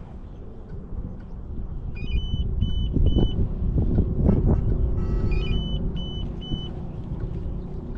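Wind rumbling on the microphone aboard a fishing boat, rising and falling in gusts, with two runs of three short high electronic beeps, one about two seconds in and one past the middle.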